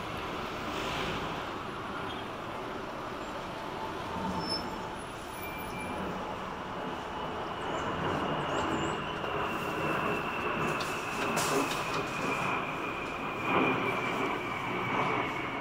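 Twin-engine jet airliner on final approach: a steady rushing jet roar, with a high engine whine that comes in about a third of the way through and slowly falls in pitch as the aircraft nears.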